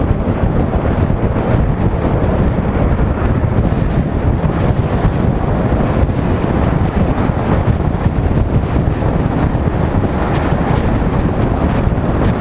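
Steady, loud wind rushing over the microphone of a moving motorcycle, drowning out the engine and road.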